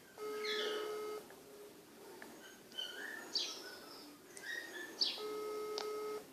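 Phone ringback tone: two steady one-second beeps, about five seconds apart, as an outgoing call rings unanswered. Bird chirps sound in between.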